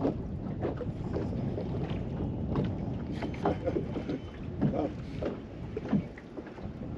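Wind rushing over the microphone and choppy water lapping and slapping irregularly against the hull of a bass boat.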